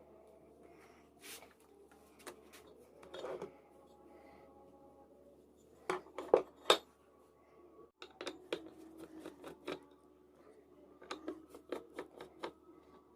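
Scattered clicks and clatter of small metal tools being handled, with a louder group of sharp taps about halfway through, over a faint low hum.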